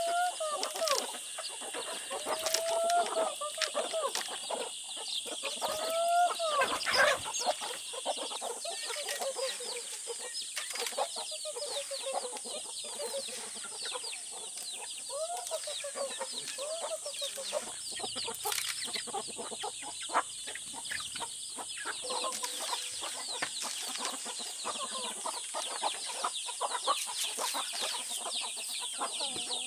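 A flock of chickens clucking steadily as they feed on scattered grain, with a steady high hiss in the background.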